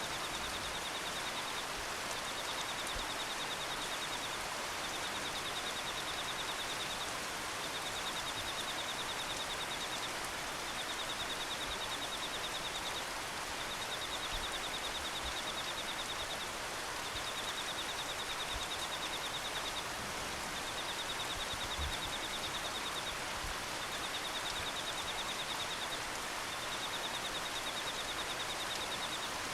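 Steady hiss of rain in a cloud forest, with an insect giving a high, rapidly pulsed trill about two seconds long that repeats after short pauses, around ten times.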